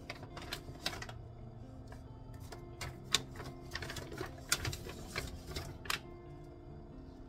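Paper bag and tissue paper rustling and crinkling in irregular bursts as a wrapped gift box is lifted out, over soft background music.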